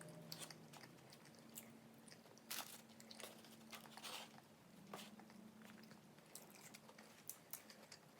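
Faint close-up eating sounds: a person biting and chewing food, with irregular wet clicks and a few crunches.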